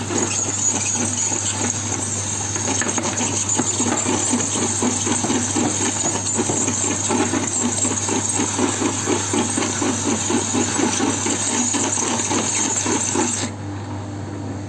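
Tumble dryer running with a loud, high-pitched squeal over a fast rhythmic rumble and a steady motor hum, the sign of dirt built up on the drum's support wheels. The squeal stops suddenly near the end, leaving the drum turning quietly with the hum.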